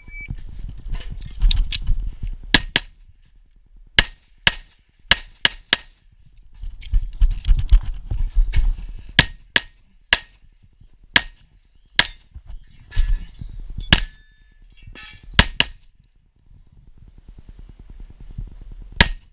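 An electronic shot timer beeps once, then an STI Trojan .38 Super single-stack 1911 pistol fires about twenty shots over roughly nineteen seconds, mostly in quick pairs with pauses between strings, the last shot near the end.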